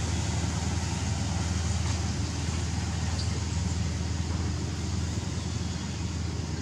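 Steady low rumble under an even hiss of outdoor background noise.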